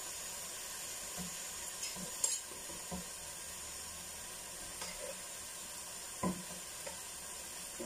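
Food sizzling steadily in a pot on the stove while shredded cabbage is stirred and tossed, with a few soft clinks of the metal utensil against the pot.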